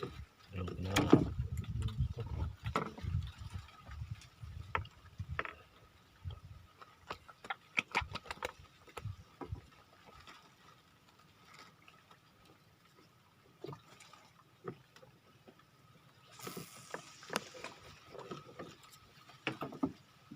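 Irregular knocks, bumps and clicks of fishing tackle being handled, heaviest in the first few seconds, then sparse clicks over a faint steady high tone, with a short hiss near the end.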